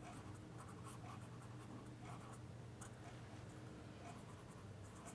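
Felt-tip marker pen writing on paper: faint, short strokes one after another as a word is written out, over a steady low hum.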